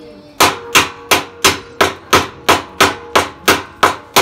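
A hammer knocking on the metal frame of an industrial sewing-machine stand: after a brief pause, a steady run of about a dozen blows, about three a second, each with a short metallic ring.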